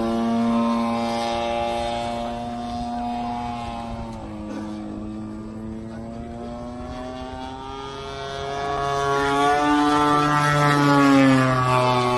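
Aerobatic RC model airplane flying overhead, its motor and propeller making a steady pitched drone. The drone fades somewhat in the middle, then grows louder and higher from about eight seconds in, with the pitch dropping again near the end.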